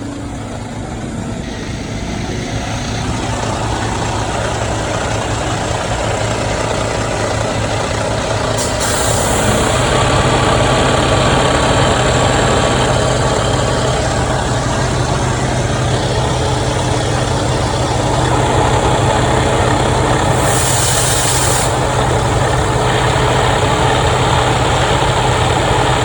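Heavy diesel engine running steadily, louder from about ten seconds in, with two short hisses: one near nine seconds and one about twenty-one seconds in.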